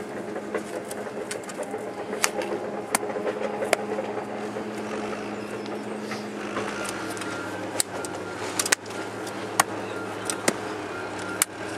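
An engine running steadily, with scattered sharp knocks and clicks over it, typical of earthwork tools striking clay and rock.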